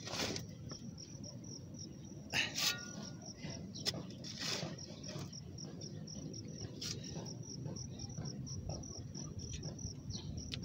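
Crickets chirping in a steady, rapid, high pulsing, with a few knocks and scrapes of a digging hoe biting into soil.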